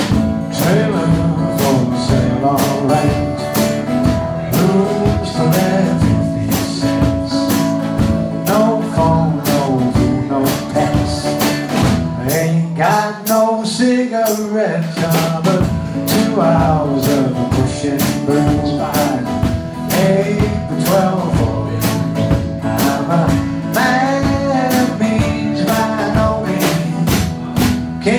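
Live country song from a duo: strummed acoustic guitar and a drum kit keeping a steady beat, with a man singing over them.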